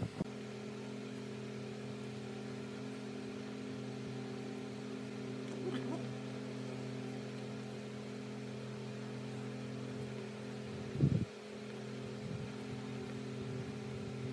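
A steady machine hum with several fixed pitches, like an electric motor running, and one short knock about eleven seconds in.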